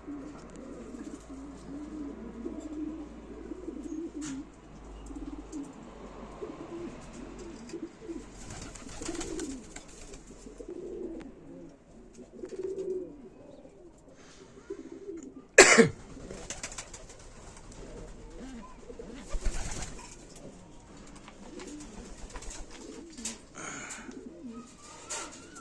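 Domestic pigeons cooing over and over, low warbling calls overlapping throughout. A single sharp knock comes a little past the middle and is the loudest sound, with a few brief rustles scattered through.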